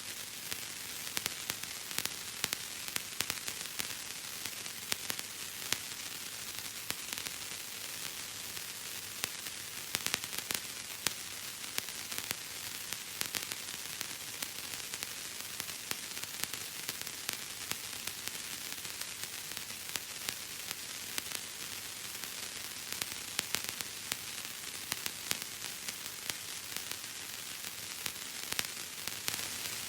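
Bubble wrap popping and crackling: a dense, irregular run of small sharp pops over a steady hiss.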